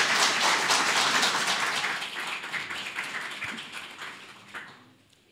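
Audience applauding, loud at first and dying away over about five seconds.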